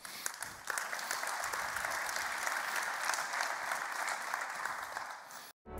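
Audience applauding steadily; the clapping cuts off abruptly near the end.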